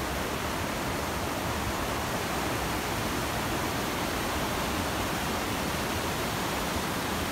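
Steady rushing of a stream flowing beneath a wooden footbridge: an even, unbroken hiss of water.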